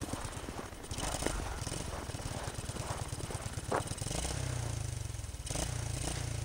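Suzuki QuadSport 230 ATV's single-cylinder four-stroke engine running, heard at a distance; its low pulsing note settles into a steadier tone about four seconds in.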